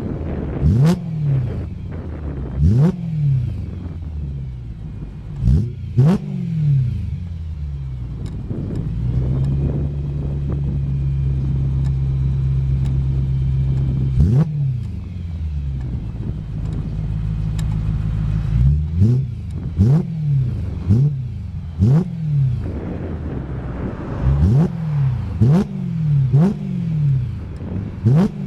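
BMW E92 M3's 4.0-litre V8 through a Fabspeed performance exhaust, revved in repeated quick throttle blips that climb sharply and fall back. About a third of the way in it holds a steady engine speed for several seconds, then the blips resume.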